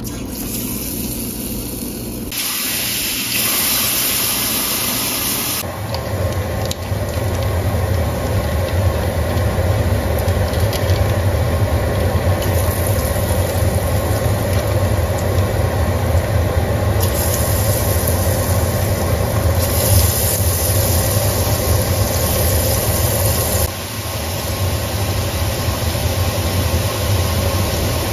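Drops of thin besan (gram flour) batter sizzling steadily as they fry in hot vegetable oil, making mihidana. The sizzle gets louder and fuller a few seconds in as more batter goes into the oil.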